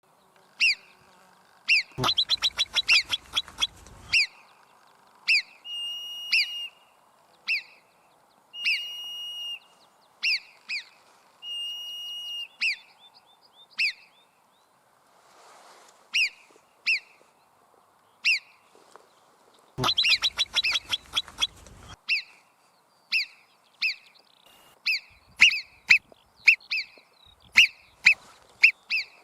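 Marmot giving high-pitched alarm whistles: many short, sharp calls repeated every second or so, a few longer held whistles, and two rapid-fire runs of calls, about two seconds in and about twenty seconds in.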